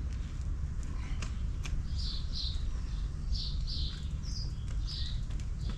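Small birds chirping in short repeated calls, several times over the few seconds, over a steady low rumble of wind on the microphone.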